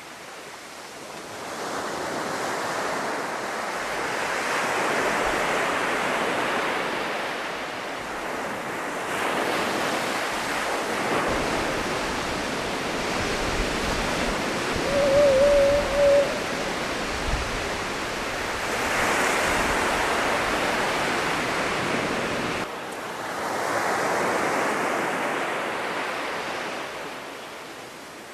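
Surf breaking and washing on a sandy beach, swelling and fading in several waves. About halfway through, a short wavering call stands out above the surf as the loudest sound.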